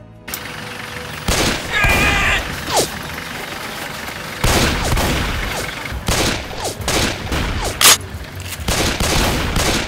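Gunfire in quick succession, many sharp shots starting about a second in and running on, with one especially loud crack near the end.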